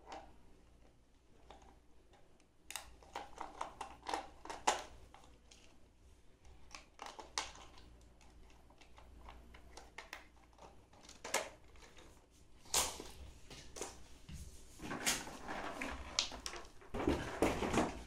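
Plastic clicks and small knocks of hands working the underside of a 1:14 scale remote-control toy car, with a run of clicks a few seconds in and single clicks after, then denser handling noise near the end as the car is set down on the floor.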